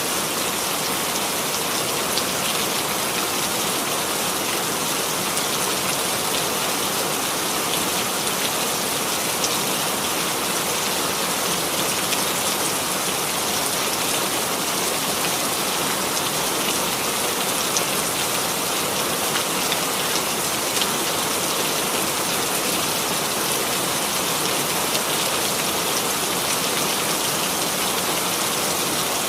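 Steady rainfall: a constant hiss of rain on a surface, with fine scattered drop ticks.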